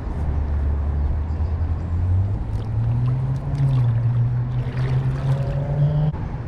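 Vehicle engine running with a low drone that climbs in pitch in steps as it speeds up, cut off abruptly near the end.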